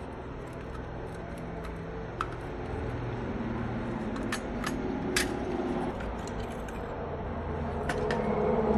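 Small sharp metal clicks from a rusty toy pistol being taken apart by hand, its slide worked and pulled off the frame, over a steady low hum that grows louder toward the end.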